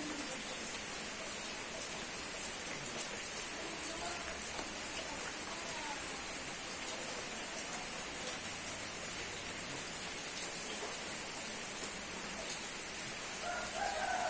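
Steady rain falling, an even hiss of rain on surfaces, with a few faint, brief pitched sounds in the background that are clearest near the end.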